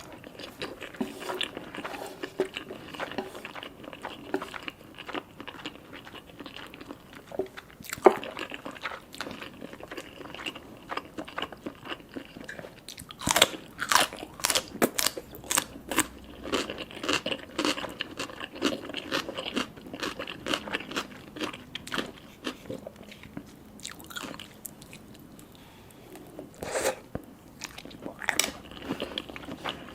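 Close-miked eating: chewing and biting into spicy ramen noodles, fish balls and mini sausages, with many sharp wet mouth clicks and smacks. A single loud snap comes about a third of the way in, a denser burst of bites follows about halfway through, and there is a quieter stretch near the end.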